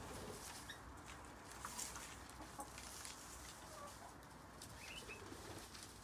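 Faint clucking of chickens, with a few short bird chirps scattered through.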